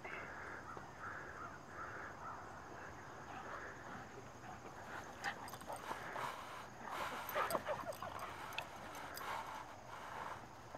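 Golden retrievers play-fighting: snuffling, mouthing and scuffling noises from the dogs. These get busier and louder from about five seconds in.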